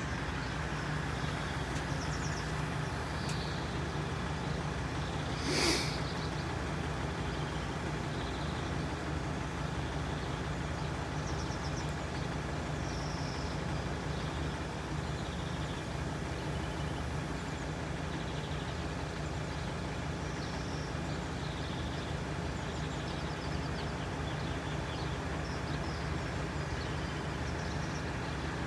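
Steady low drone of idling engines, with faint short high chirps scattered throughout. A brief sharp noise comes about six seconds in.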